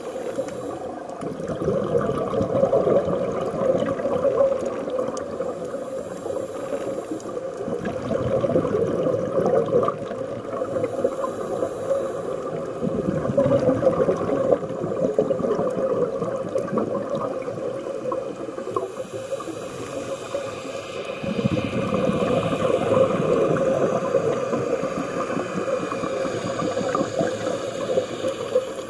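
Scuba divers breathing through regulators, heard underwater: rushes of exhaled bubbles that swell and fade every few seconds, over a steady hum.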